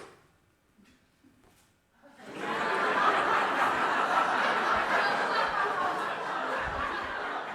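A single sharp click, then about two seconds later a theatre audience breaks into laughter and applause that holds steady and slowly fades near the end.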